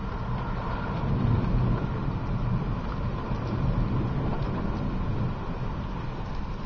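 Thunderstorm wind and rain heard from inside a car with its windows cracked: a steady low rumbling noise that swells about a second in.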